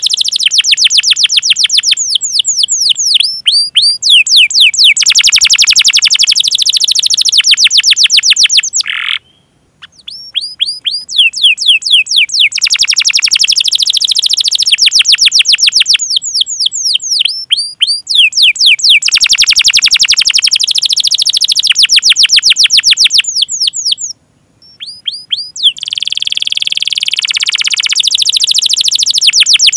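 Domestic canary singing a long, fast song of rapid high downward-sweeping chirps run together into rolling trills. The song breaks off twice, briefly, about nine seconds in and again about twenty-four seconds in.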